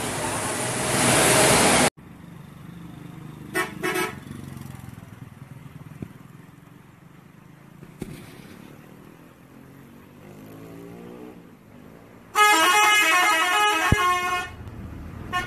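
Bus 'telolet' multi-tone musical horn: a short double toot a few seconds in, then a louder multi-note telolet tune lasting about two seconds near the end. The first two seconds are a loud rushing noise that cuts off abruptly.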